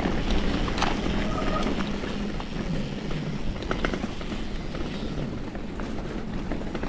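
Mountain bike riding over a rough, muddy grass track on knobby Maxxis Forekaster tyres: steady rolling and wind noise with scattered small clicks and rattles from the bike, picked up by a handlebar-mounted camera.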